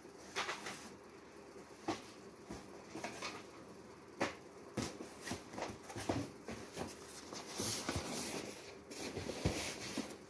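Cardboard cartons being handled and stacked: scattered short knocks and scrapes, with a longer scraping, rustling stretch about eight seconds in.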